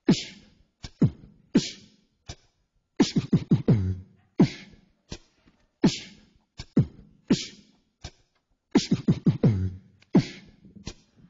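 Beatboxing: mouth-made kick-drum thumps and hissy snare sounds in a sparse, steady beat, with a quick flurry of hits about three seconds in and again about nine seconds in.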